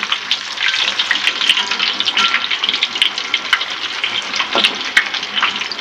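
Blocks of tofu deep-frying in hot oil in a wok: a steady sizzle thick with small crackling pops.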